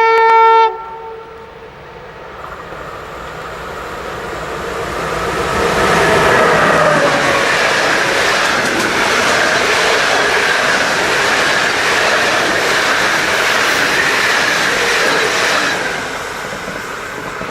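A train horn sounds a short pitched blast that cuts off under a second in. Then a passing train builds up over a few seconds into a loud, steady rush of wheel and rail noise that holds for about ten seconds and eases slightly near the end.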